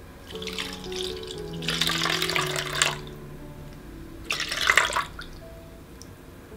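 Soy sauce poured from a small bowl into a plastic bowl of sugar, splashing and gurgling for a couple of seconds, then a second, shorter pour of liquid splashing in just after the midpoint.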